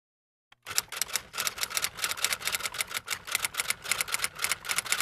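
Typing sound effect: a fast, unbroken run of typewriter-like keystroke clicks, starting about half a second in after a moment of dead silence.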